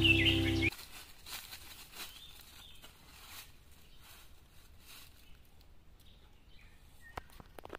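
Background music cuts off abruptly under a second in, leaving faint rustling of dry leaf litter and foliage with scattered light clicks and taps, a couple of sharper clicks near the end.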